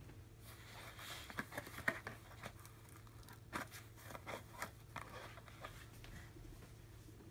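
Cardboard rustling, crackling and scratching in irregular spurts as two Norwegian Forest Cats tussle and paw at each other in a cardboard box. The loudest crackle comes about two seconds in.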